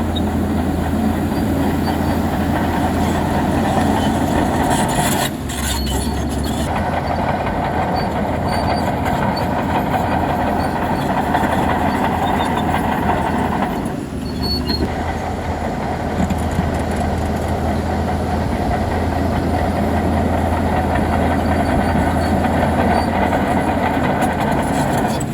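Heavy bulldozer working: its diesel engine running steadily with a low drone and machinery clatter, easing off briefly twice.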